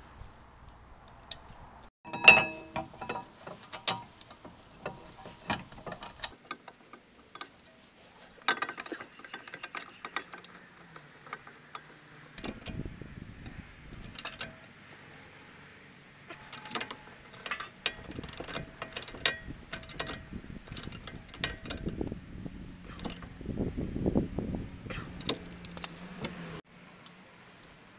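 Ratchet wrench clicking as the brake caliper bracket bolts are turned, among sharp clinks and knocks of metal tools and parts. A loud ringing metal clink comes about two seconds in.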